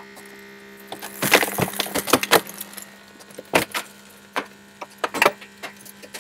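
Holmatro hydraulic rescue tool lifting a car's steering wheel and dash: a steady hum under a run of sharp clicks, snaps and crackles of stressed metal and trim, densest from about one to two and a half seconds in, then a few single snaps.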